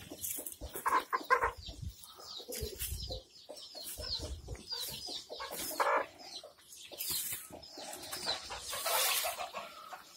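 Kadaknath and desi chickens clucking, mixed with many short, high, falling peeps.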